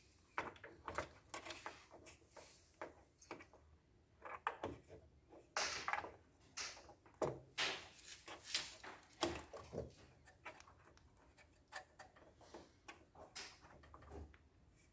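Irregular light clicks and knocks of small copier drive parts and tools being handled, a busier run of them in the middle.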